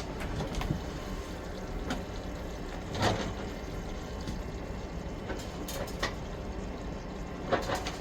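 Kitchen handling noises: a few light knocks and clicks, about three and six seconds in and again near the end, over a steady background noise.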